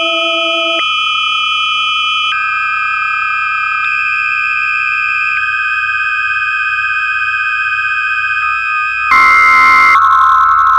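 Electroacoustic tape music: several steady electronic sine tones sounding together, switching abruptly to new pitches every second or two over a low drone. About nine seconds in, a louder, dense buzzing cluster of tones takes over.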